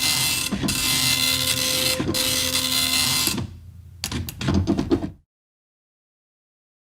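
Dot matrix printer printing: the print head rasps steadily across the line, with a short break about every second and a half as a line ends. A little past three seconds the printing stops, a quick run of clicks follows about a second later, and then there is dead silence.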